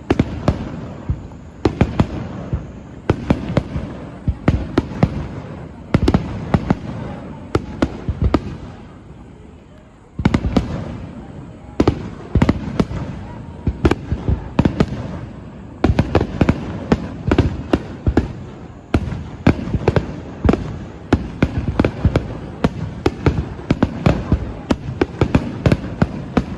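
Fireworks finale barrage: aerial shells bursting in rapid, overlapping bangs. The bangs thin out about eight seconds in, and a fresh barrage starts abruptly about ten seconds in.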